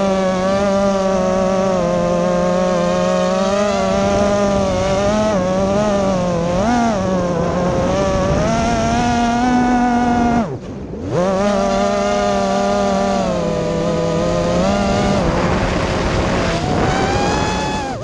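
A 5-inch FPV racing drone's motors and propellers whining in flight, heard from its onboard camera, the pitch rising and falling with the throttle. About ten and a half seconds in, the whine dives sharply and briefly, then climbs straight back.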